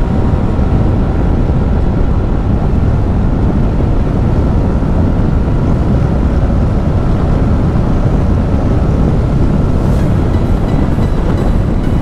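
Loud, steady wind noise from riding at highway speed on a Yamaha NMAX scooter, picked up by a lavalier mic inside a helmet that is open at the chin. The scooter's engine runs underneath it as the speed climbs past 100 km/h.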